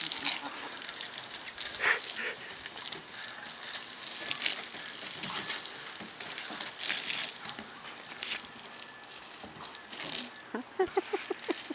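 Water spray from a garden hose splattering on a wet wooden deck while a Weimaraner snaps at the stream and scrabbles about on the boards, with several louder bursts of spray. Near the end comes a quick rhythmic run of short huffs from the dog.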